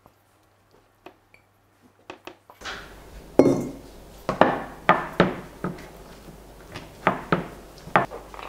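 Kitchen utensils knocking and clinking on a worktop as a stainless steel mixing bowl, a dough scraper and a rolling pin are handled and set down: a quick run of about nine sharp knocks, the loudest a little over three seconds in.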